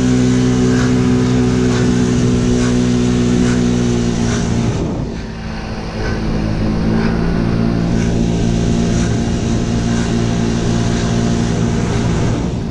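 Motor scooter engine running at a steady cruise, easing off about five seconds in and picking up again about a second later.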